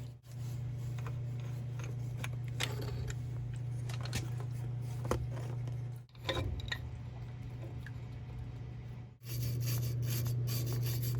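Steady low hum of running machinery, with scattered light clicks and scrapes of hand tools working on a valve and actuator. The hum drops out abruptly twice.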